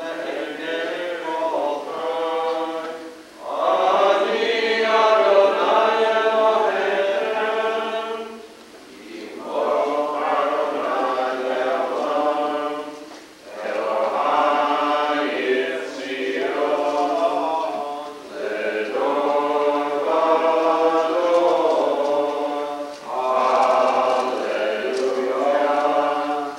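A synagogue congregation singing a prayer together in unison, in sung phrases of a few seconds each with short breaks between them.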